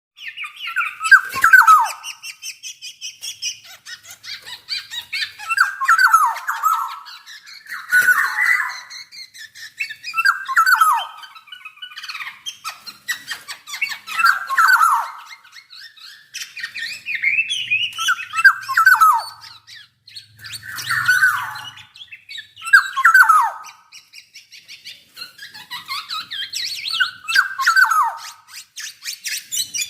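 Black-naped oriole (Javan kepodang) singing: a loud phrase of notes sliding downward, repeated every two to four seconds, with quieter high twittering between phrases.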